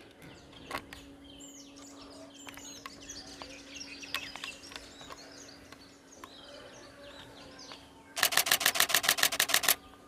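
Small birds chirping, then about eight seconds in a Canon camera's shutter fires a rapid burst, about ten frames a second for a second and a half. A faint steady hum runs underneath.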